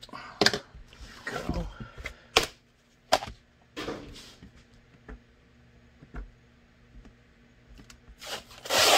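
A stiff sheet of carbon-fibre-pattern Kydex plastic being handled and slid on a cutting mat, with a series of sharp clicks and knocks in the first few seconds, then a louder rustling near the end.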